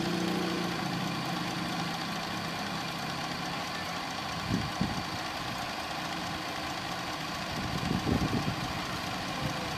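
Electric home sewing machine running steadily, stitching an edging stitch along a strip of fabric, with a few short knocks about halfway through and again near the end.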